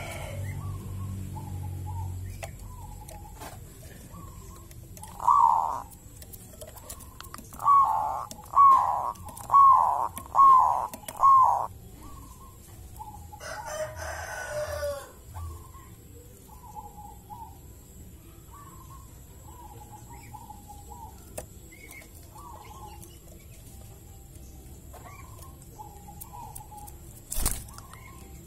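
Caged zebra dove (perkutut) cooing. There is a loud coo about five seconds in, then a run of five loud, evenly spaced coos just under a second apart, followed by softer scattered coos. A harsher, noisier call comes about fourteen seconds in, and a sharp click near the end.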